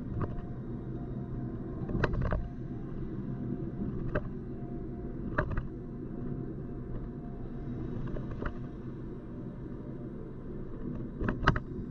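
Car driving slowly on a city street, heard from inside the cabin: a steady engine and road rumble. A few sharp knocks and rattles stand out, the loudest a pair about two seconds in and another pair near the end.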